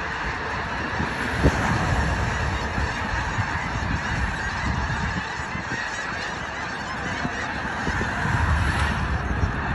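A large flock of geese honking continuously, many calls overlapping into one dense clamour as the flock flies around.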